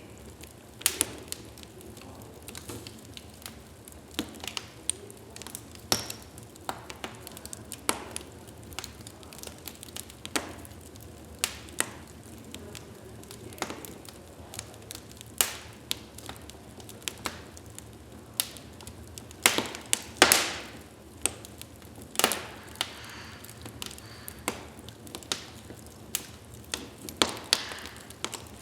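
Wood fire in a fireplace crackling: irregular sharp pops and snaps of burning logs over a steady low hiss of the flames, with a louder burst of pops about twenty seconds in.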